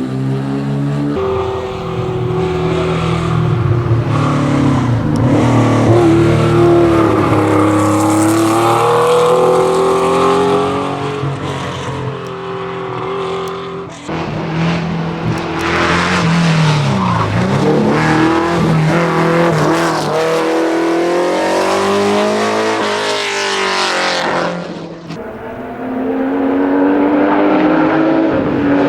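Historic competition car engines revving hard, climbing and dropping in pitch through gear changes, with tyre squeal as the cars slide. The sound jumps abruptly from one car to another a few times.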